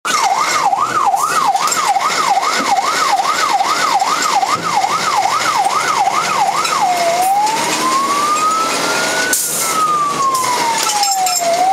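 Fire engine's siren heard from inside the cab while driving: a fast up-and-down yelp, about two sweeps a second, for the first seven seconds, then it switches to a slow wail that rises and falls over about two seconds each way.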